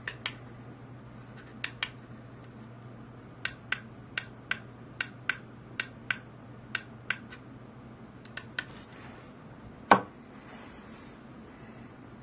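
A series of light, sharp clicks at an uneven pace, then one louder knock about ten seconds in, over a steady low hum.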